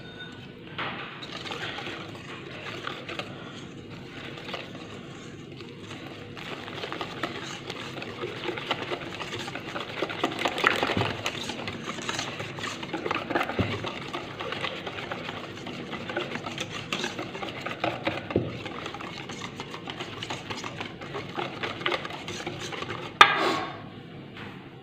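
Wire whisk beating pancake batter in a stainless steel bowl, a steady run of quick scraping clicks against the metal that grows busier in the middle. A single sharp knock comes near the end.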